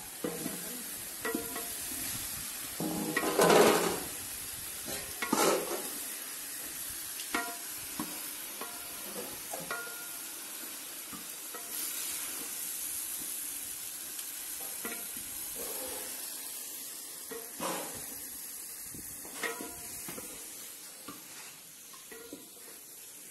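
Spatula scraping and knocking against a large metal pot as chicken and pork curry is stirred, over a steady sizzle of frying; the loudest scrapes come about three and a half and five and a half seconds in.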